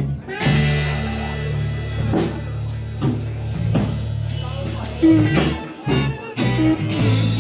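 A rock band playing live, starting the instrumental intro of a song just after the start: guitar and bass chords held over a steady drum-kit beat.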